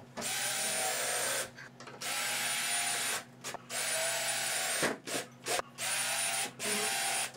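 Cordless drill driving screws through cement board into the studs. The motor whines steadily in several runs of about a second each, stopping briefly between screws, with a few quick short blips late on.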